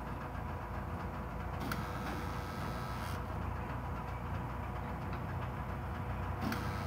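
Pile-driving rig running with a steady low machinery rumble. A brief hissing burst comes about two seconds in and another near the end.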